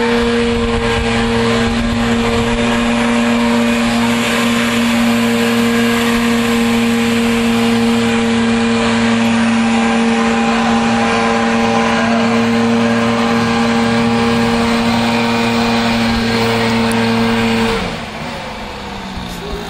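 Diesel engine of a truck-mounted concrete boom pump running loud at steady high revs. Near the end the revs fall away and the pitch drops to a lower, quieter run.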